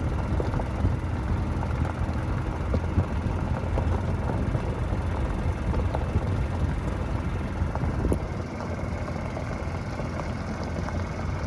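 A small engine running with a steady low rumble, easing slightly about eight seconds in.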